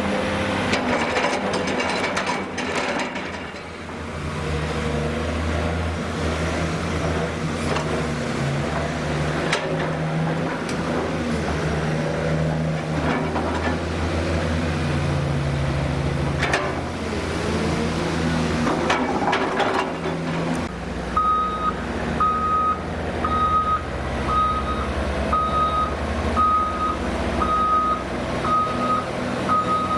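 Heavy diesel engines of a crawler excavator and articulated dump truck running, the pitch rising and falling as the excavator works its hydraulics, with a few sharp knocks. About two-thirds of the way in, a reversing alarm starts beeping steadily about once a second.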